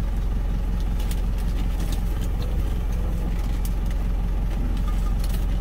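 Truck engine idling steadily, heard from inside the cab, with a few faint clicks of packaging being handled.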